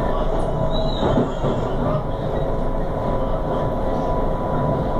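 Electric commuter train heard from inside the passenger car while under way: a steady rumble of wheels on rails with a thin steady whine. A short high squeal comes about a second in.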